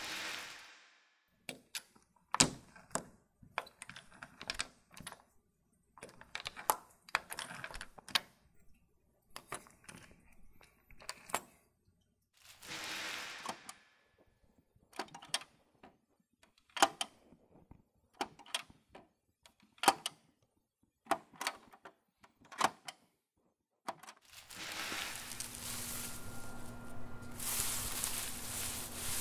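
A series of separate sharp knocks and clicks, irregularly spaced with short silences between them. About 24 seconds in they give way to a steady hiss-like noise carrying faint steady hums.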